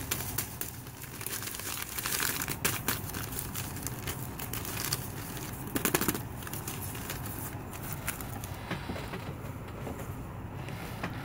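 Plastic MRE ration packaging crinkling and rustling in the hands as a small packet is torn open and handled, with scattered sharper crackles.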